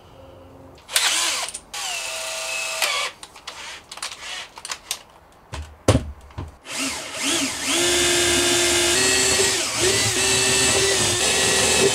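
Cordless drill drilling holes: a few short runs in the first half, its whine dropping in pitch as it loads, then a longer steady run from about seven seconds in.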